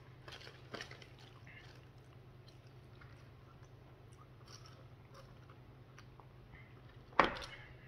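Faint chewing of McDonald's fries and small mouth sounds, with a few soft clicks in the first second and a quiet sip through a straw, over a low steady hum. About seven seconds in comes a single sharp knock, the loudest sound.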